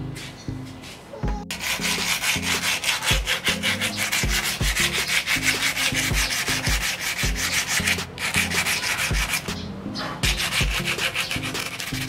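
Sandpaper rubbed by hand over a rusty hammer head held in a vise: quick back-and-forth scraping strokes that start about a second and a half in, with two short breaks near the end.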